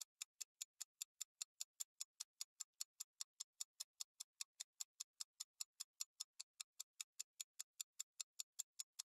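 Countdown-timer ticking sound effect, clock-like ticks about five a second, keeping an even pace while a quiz question waits for its answer.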